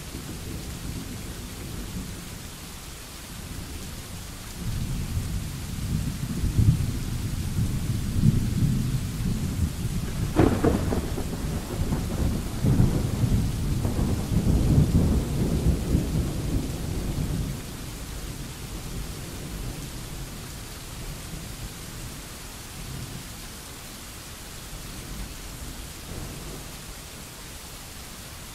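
Steady rain with a long roll of thunder. The low rumble builds about five seconds in, has a sharper crack near the middle, and dies away after about twelve seconds, leaving the rain hiss.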